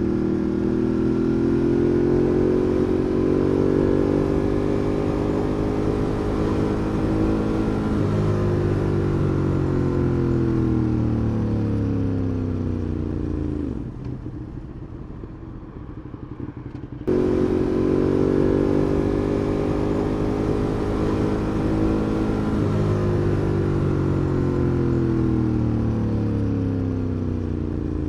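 Ducati Monster 821 L-twin engine heard onboard. It pulls in gear with a slowly rising pitch, changes up about 8 s in, then rolls off with falling revs and drops to a quieter low run. About 17 s in it jumps back suddenly and the same pull, upshift around 23 s and roll-off follow again.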